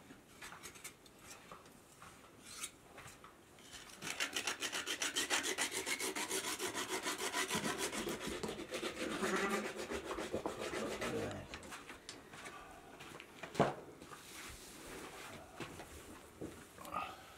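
A fast, even rasping, many strokes a second, from about four seconds in until about eleven seconds. A single sharp knock follows near fourteen seconds.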